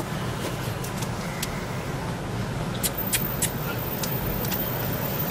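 Steady low rumble of street traffic and car engines running, with a few short, sharp clicks about three seconds in.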